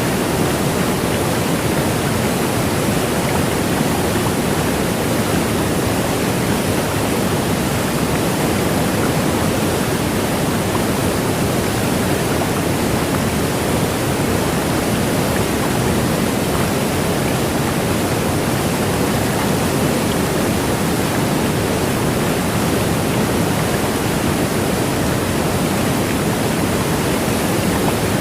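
Waterfall pouring steadily, an even unbroken rush of falling water.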